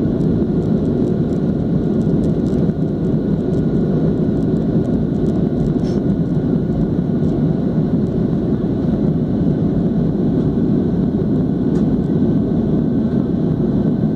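Airliner in flight after takeoff, heard from inside the cabin: a steady, loud rumble of engines and airflow, with a faint steady whine above it.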